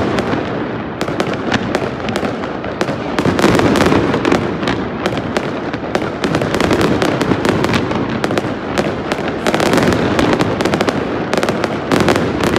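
Aerial fireworks display going off without a break: a dense run of sharp cracks and crackling pops over a constant rumble of bursting shells, loud.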